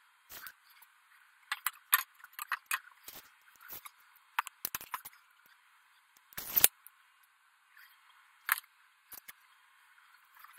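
Scattered clicks, taps and light clatter of tools and small items being picked up and handled, with one heavier knock about six and a half seconds in.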